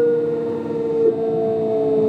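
Traction motors and Mitsubishi GTO-VVVF inverter of a Kintetsu 5200 series train whining with several steady tones that slowly fall in pitch as the train slows on its approach to a station.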